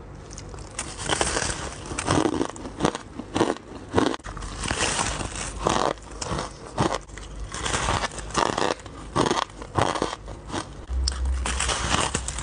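Close-up bites into a large frosty slab of ice, crunching and crackling as pieces break off between the teeth, then chewed. A dense run of sharp, irregular crunches.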